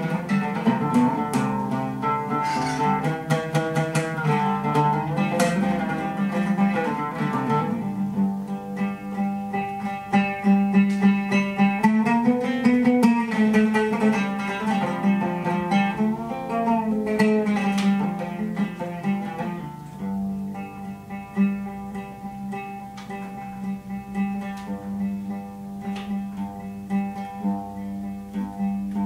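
Oud being plucked, with a few bending notes near the middle, over a steady low drone. The playing becomes sparser and quieter about two-thirds of the way through.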